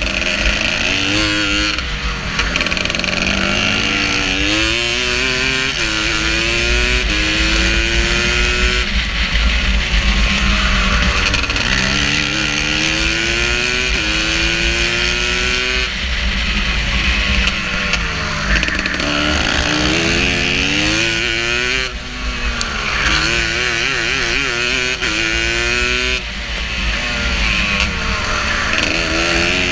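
Racing go-kart engine heard onboard at speed, its pitch rising in long sweeps under throttle and dropping sharply each time the throttle is lifted for a corner, several times over.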